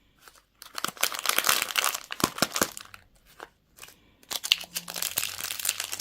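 Crinkly candy wrapper being handled and opened by hand: two spells of dense crackling crinkle, the first starting about half a second in, the second after a short pause a little past the middle.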